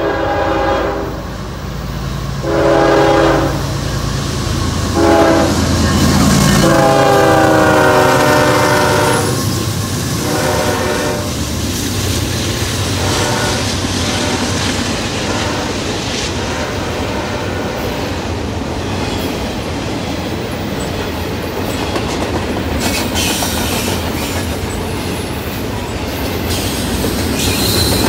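Diesel freight locomotive's air horn sounding the grade-crossing signal (two long blasts, a short one, then a long one that falls in pitch as the locomotive goes by) over its engine rumble. Then the double-stack intermodal well cars roll past with steady wheel noise and clickety-clack over the rail joints.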